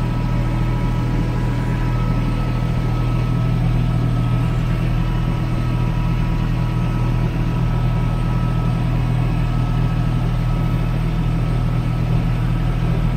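Kubota L3560 tractor's four-cylinder diesel engine running steadily at constant speed while the tractor drives, heard from inside the cab.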